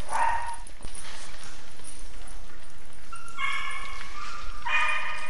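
A dog barks briefly, then gives two drawn-out, high-pitched whines, about three and a half and five seconds in.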